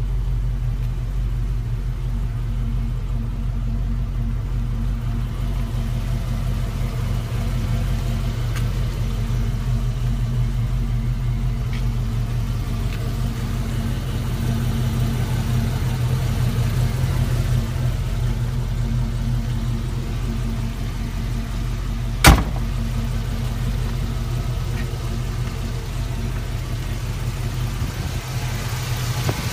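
1990 Ford Mustang GT's 5.0-litre V8 idling steadily, with one sharp knock about three-quarters of the way through.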